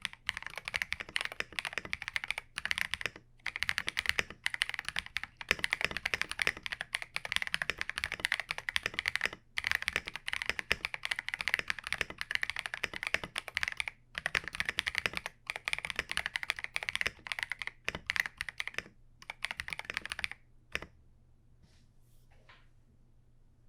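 Typing on a KiiBOOM Phantom 81 V2, a gasket-mounted mechanical keyboard with transparent switches. Fast, continuous key presses in short runs with brief pauses. The typing stops a few seconds before the end.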